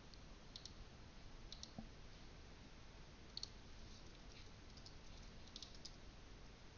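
Faint, scattered clicks of computer keyboard keys and a mouse being pressed a few at a time, over a steady low hiss.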